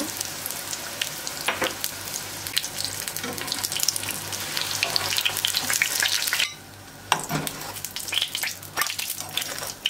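Vegetable oil sizzling and crackling with many small pops around çiğ börek shallow-frying in a pan as they are turned with tongs. The sizzle drops away suddenly for about half a second, two-thirds of the way through, then crackles again.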